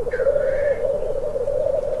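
Male black grouse at the lek: a continuous bubbling, cooing warble, with one higher hissing call that dips and then levels off in the first second.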